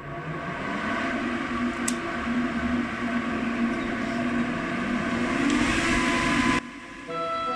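A motor-driven machine running steadily: a humming tone over a rush of air, rising slightly in pitch near the end before cutting off abruptly.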